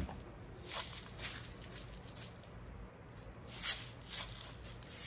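Faint, scattered swishing and tapping as salt is shaken from its canister into a measuring spoon and tipped into the mixing bowl, the clearest stroke about three and a half seconds in, over a low steady hum.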